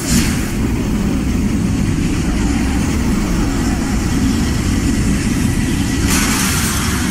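A loud, steady rushing roar with a deep rumble underneath: a film sound effect for a blast of fiery energy sweeping through a room. It turns hissier for about a second near the end.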